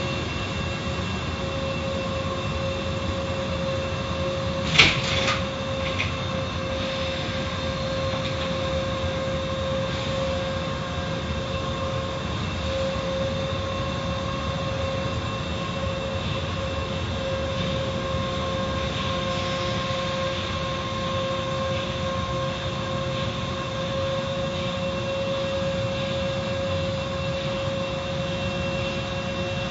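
Car wash machinery running steadily: a constant noise with a steady whine, and a sharp knock about five seconds in.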